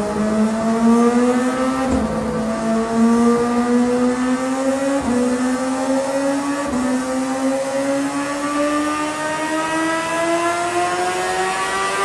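CFMOTO 500SR S motorcycle engine and exhaust running under load, its pitch climbing steadily as it accelerates, with brief small dips about 2, 5 and 7 seconds in.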